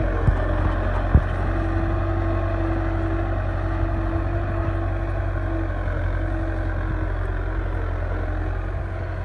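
Belarus 510 tractor's diesel engine running steadily under load as it pulls a 13-tine cultivator through the soil, with a deep rumble and a steady hum. Two short knocks sound near the start.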